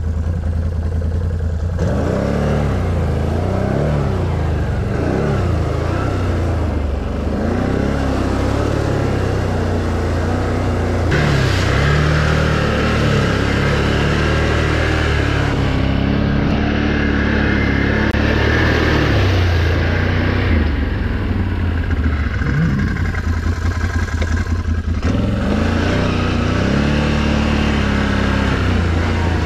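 Can-Am Renegade XMR 1000 ATV's V-twin engine revving up and easing off again and again, at high revs throughout, as it churns through flooded mud.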